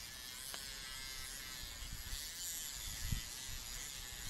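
Small handheld rotary tool with a cutting disc, buzzing steadily at high speed as it grinds through a steel handcuff, with a soft knock about three seconds in.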